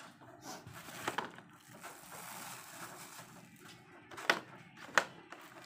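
Handling noise as a new microphone and its cable are unpacked and lifted out: rustling, with a few sharp clicks and knocks, the two loudest near the end.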